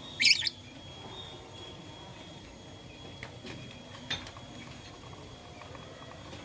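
Lovebird giving one short, loud, shrill chirp just after the start, followed by a few faint sharp ticks about three to four seconds in.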